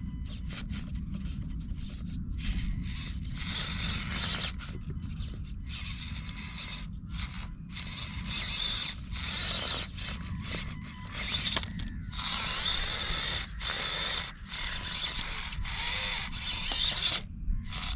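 Axial SCX24 micro RC crawler's small electric motor and gearbox whirring in short bursts of throttle, stopping and starting many times, with the tyres scraping over rock.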